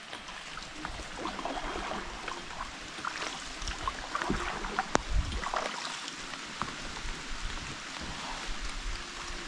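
Water lapping and trickling around a small boat moving across a lake in light rain, with scattered small drips and splashes and a sharper click about five seconds in.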